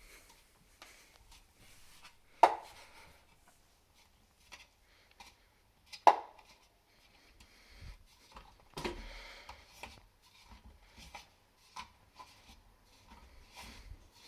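Elite Suito-T smart trainer knocking as its flywheel turns: sharp knocks, the two loudest about three and a half seconds apart, then a softer one and a run of fainter, quicker ticks. The knock is a fault; the owner hears it once per flywheel revolution, and only when the flywheel turns forwards.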